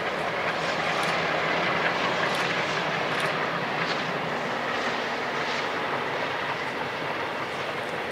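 Diesel-hauled freight train passing at a distance: a steady rumble of the locomotive engines and the wagons rolling along the track.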